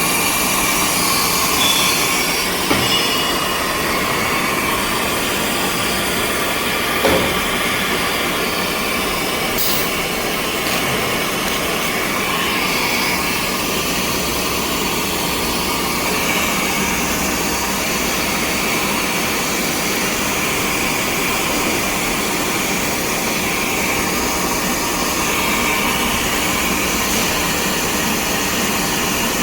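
High-speed slitting and rewinding machine for adhesive label stock running, a steady mechanical whir with a few brief knocks.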